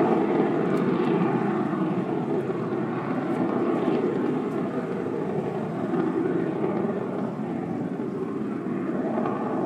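Distant RAF Harrier jump jet's engine noise, a steady rushing rumble that eases off through the middle and swells again near the end.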